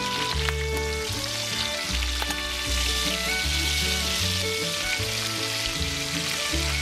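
Bacon sizzling and spitting in a cast-iron skillet, a steady hiss, under background music with a stepping bass line.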